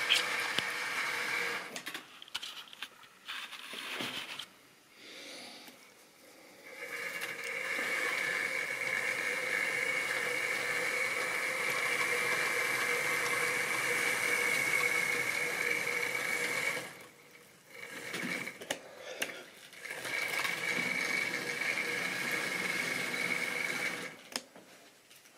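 A model railway train running on its track: the locomotive's small electric motor whines steadily under the running noise. The sound drops away twice, about two seconds in and again about seventeen seconds in, for a few seconds each time.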